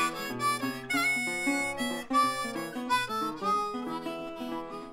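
Theme-song music: a harmonica playing an instrumental melody over guitar accompaniment.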